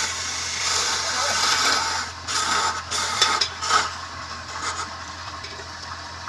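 Wood lathe running with a steady low motor hum while something rubs and scrapes against the spinning wood in uneven strokes, easing after about four seconds.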